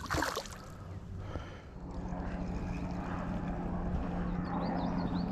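A distant engine's steady drone builds in about two seconds in and holds. A few short high chirps sound near the end.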